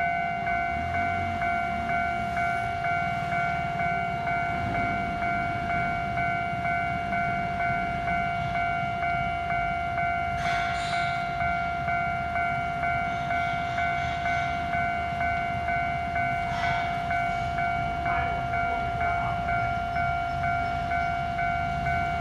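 Railway level-crossing warning bell ringing steadily, an electronic ding repeating about twice a second: the crossing is closed for an approaching train.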